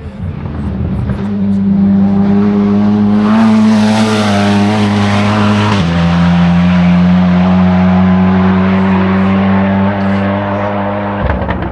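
Hillclimb race car under full throttle, its engine note held high and loudest as it passes close by. About six seconds in, the note drops once with a gear change, then holds again until the car fades near the end.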